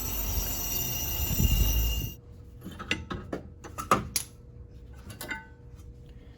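A steady, loud sound cuts off about two seconds in. It is followed by scattered light metallic clinks and taps of small metal parts being handled.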